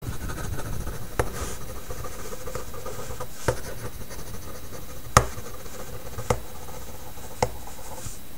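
Chalk scratching steadily on a chalkboard as words are written out, with five sharp chalk taps along the way, the loudest about five seconds in.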